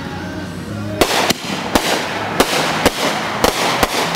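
Consumer fireworks going off: about seven sharp bangs at irregular intervals over a steady hiss, starting about a second in.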